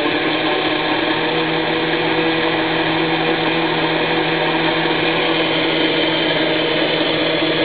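Countertop blender running steadily at one speed, its motor holding a constant pitch as it blends a jar of liquid.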